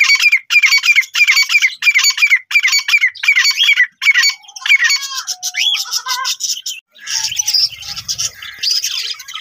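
Grey francolin calling: a loud, harsh call repeated in an even rhythm, about one and a half a second, that breaks up after about four seconds. After a cut about seven seconds in, a flock of budgerigars chirps and chatters over one another.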